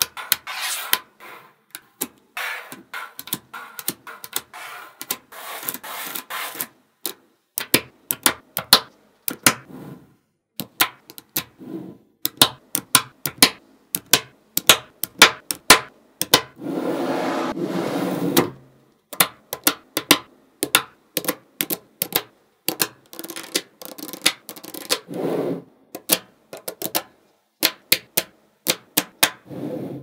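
Small magnetic balls clicking sharply as they snap together, in quick irregular runs of clicks. Several longer stretches of scraping, rolling rub come between them, the longest about seventeen seconds in.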